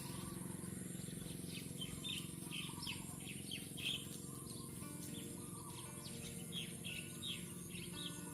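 Small birds chirping busily, several short falling chirps a second, over soft sustained background music.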